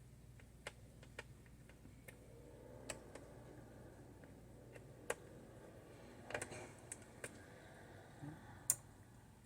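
Scattered small clicks and taps of a screwdriver and screws on a laptop's plastic underside as screws are taken out, the sharpest click near the end.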